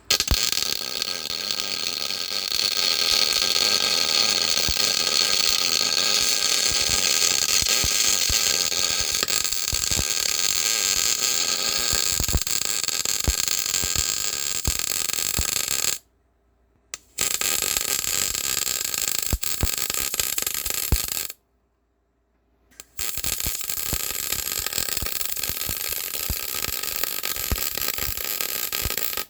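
Gas-shielded wire-feed welder arc crackling and hissing in three runs: a long one of about sixteen seconds, a short one of about four, then another of about six. Each starts and stops abruptly. The welder is running on a leaky shielding-gas hose while laying weld onto a broken stud to turn it out.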